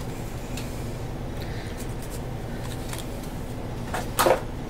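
Quiet handling of a folded paper pamphlet and small toy accessories over a low steady room hum: a few faint ticks, then one short, loud handling noise about four seconds in as items are picked up.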